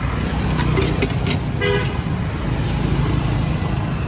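Steady street traffic rumble with a short horn toot about one and a half seconds in, and a few light clicks just before it.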